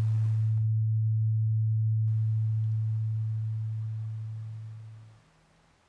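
A low, steady electronic drone on a single pitch, fading away over its last two seconds and stopping about five seconds in.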